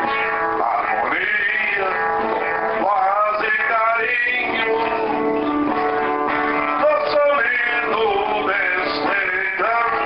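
Music: an acoustic guitar being played, with a sustained, wavering melody line over it.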